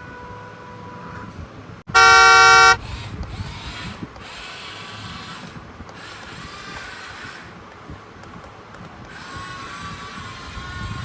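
One loud horn honk, a single blast of under a second about two seconds in, over a steady low mechanical rumble.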